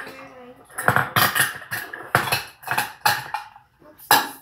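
Kitchen utensils clinking and knocking: a measuring cup and spoon scraping and tapping against a bowl as brown sugar is scooped and packed. Sharp clicks come in a quick cluster about a second in and again in the second half.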